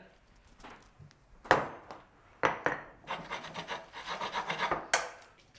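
A couple of knocks, then a utensil scraping and stirring spaghetti around a stainless steel frying pan in a quick run of rasping strokes, ending in a sharp clank.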